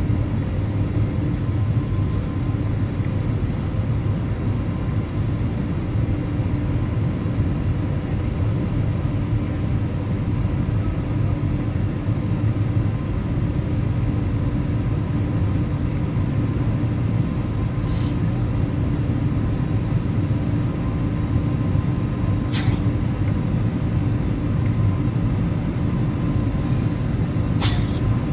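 Jet airliner's engines and airflow heard inside the cabin during the climb after takeoff: a steady deep drone with a constant hum. Three brief ticks sound in the second half.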